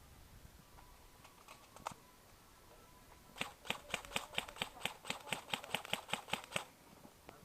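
Airsoft gun firing a quick run of about fifteen sharp shots, around five a second, for some three seconds, after a few scattered clicks earlier.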